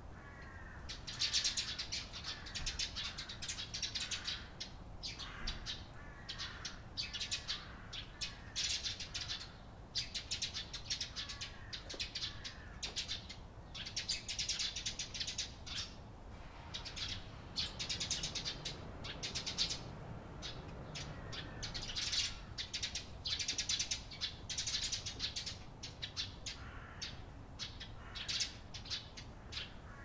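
Eurasian tree sparrows chirping: clusters of quick, high chirps that come again and again with short gaps between them.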